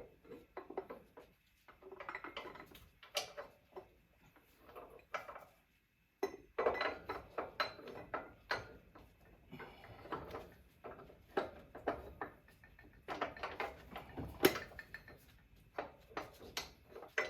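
Irregular metallic clinks and knocks of motorcycle rear-wheel parts being handled and worked into place, as the wheel, spacer and belt pulley are lined up for the axle.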